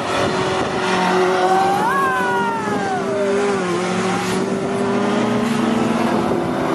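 Several rally cars' engines running hard on a wet circuit, overlapping. One rises sharply in pitch about a second and a half in, then falls away over the next couple of seconds, while the others hold a steady note underneath.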